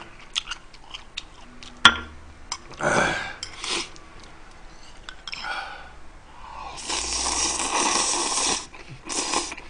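A person slurping noodles: a sharp click about two seconds in, a few short slurps, then one long slurp of nearly two seconds, the loudest sound here, as a mouthful of Chapagetti is sucked in from the chopsticks.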